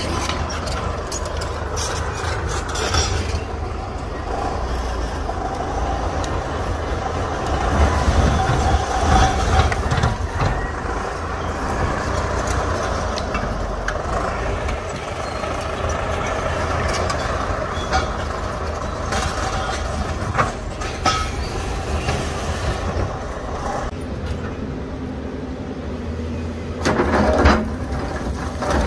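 Heavy diesel earthmoving machinery running steadily under load: a crawler bulldozer pushing broken rock, with rocks knocking and scraping throughout. Louder knocks of rock come near the end.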